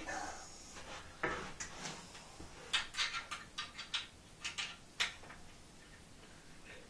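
An Allen key tightening the screws of a flat-pack wooden bunk bed frame: a run of irregular light clicks and knocks as the key is turned and reset in the screw heads, thinning out near the end.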